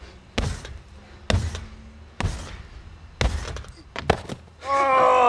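Feet landing on an in-ground trampoline mat, a thud about once a second, five bounces with a double thud on the last, as he builds height for a flip. Near the end a person's long shout.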